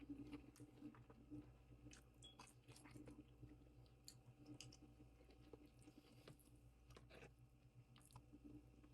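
Quiet, close-up chewing of food, with scattered soft wet mouth clicks and crackles.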